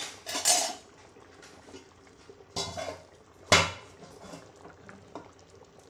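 Metal cookware clanking: three short clatters of pots and utensils knocking together, the loudest and sharpest about three and a half seconds in, ringing briefly.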